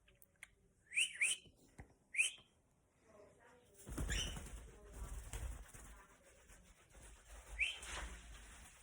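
Cockatiel giving short rising chirps: three in the first couple of seconds, then two more spaced out, with a stretch of rustling or wing flapping from about four seconds in.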